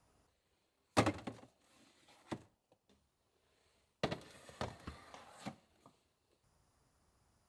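Two short bouts of thunks and clatter from objects being handled and set down: one about a second in, the other about four seconds in, with near silence between.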